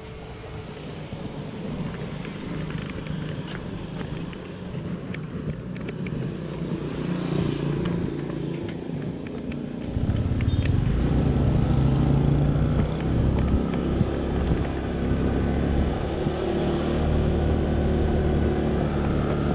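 Honda automatic scooter running as it is ridden along a road, with a sudden step up in loudness about halfway through. Before that, quieter sounds with a few sharp clicks.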